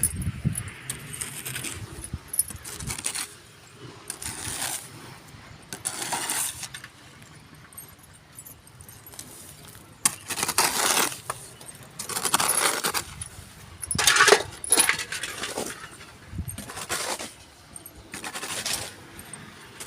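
Masonry work on a brick wall: metal tools scraping and clinking against mortar and bricks in irregular bursts, each lasting about a second, with short pauses between.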